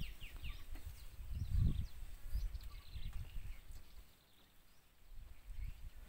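Wind buffeting the microphone in gusts, loudest about a second and a half in. Over it, birds chirp in short, quick falling notes through the first three seconds or so.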